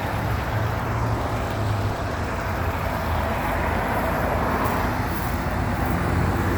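Steady rumble of road traffic and motor vehicles, with a low hum underneath and no sharp sounds.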